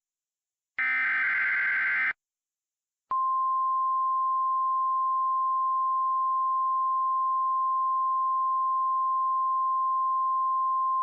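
An Emergency Alert System SAME digital header burst, a short blast of buzzing data noise, ends about two seconds in. After a second of silence, the NOAA Weather Radio warning alarm tone starts, one steady high pure tone held unbroken.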